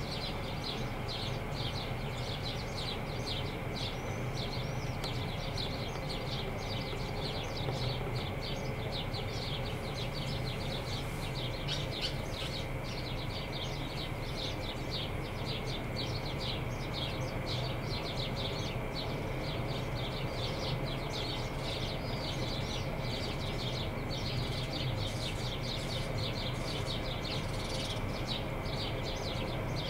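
Small birds chirping in quick, repeated short notes over a steady low drone.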